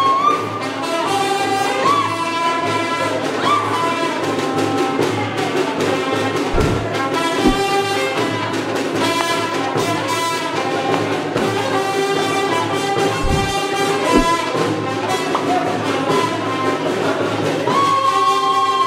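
Brass band playing: trumpets and trombones carry a melody, with a few heavy bass drum strokes in the middle.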